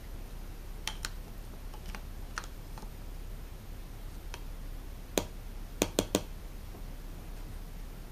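Light scattered clicks and taps of plastic as a syringe is handled in a plastic medicine cup, with a sharper click about five seconds in followed by three quick clicks.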